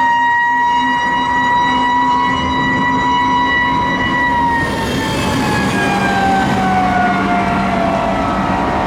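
Federal Q mechanical siren on a fire tanker, held at a steady high wail for about four seconds, then winding down with its pitch falling slowly.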